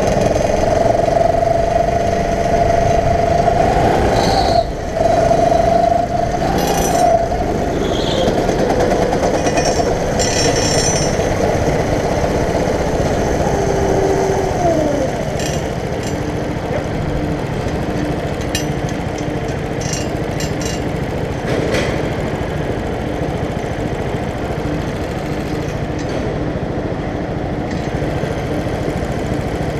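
Go-kart engine running hard under way, heard from on board the kart, its revs falling once about fifteen seconds in.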